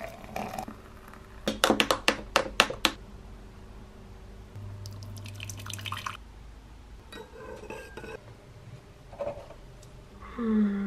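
Coffee-making kitchen sounds: a quick run of sharp clinks of glass and crockery, then a short splashy pour of liquid, with more light clatter and a brief low tone near the end.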